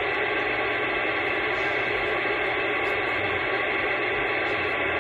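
Steady static hiss from a CB radio receiver, with no station coming through clearly.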